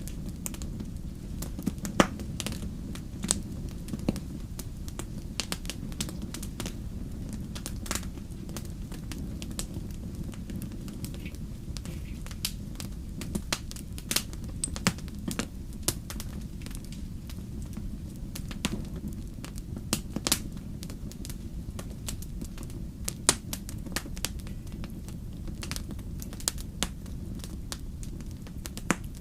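Wood campfire crackling, with irregular sharp pops of burning logs over a steady low rumble of the flames; the loudest pop comes about two seconds in.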